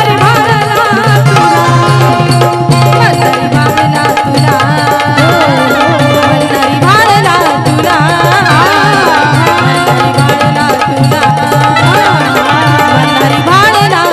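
Instrumental passage of a Marathi folk song: a dholki drum keeps a steady, driving beat under an ornamented melody line.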